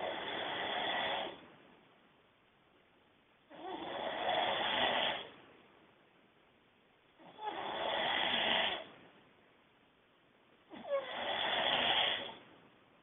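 A man snoring loudly through his nose, with four snores about three and a half seconds apart. Each snore lasts about a second and a half, with quiet breaths between them.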